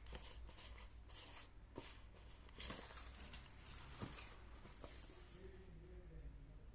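Faint rustling of packaging being handled, with a few light clicks and taps, over a low steady hum.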